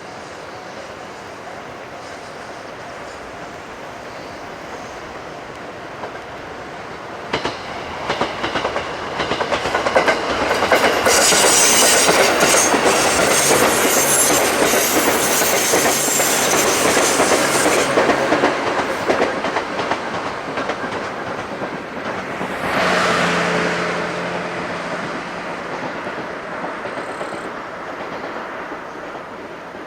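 A six-car 221 series electric multiple unit passing, with its wheels clacking over the rail joints. It builds up about a quarter of the way in, is loudest in the middle, swells briefly again later on, and fades toward the end.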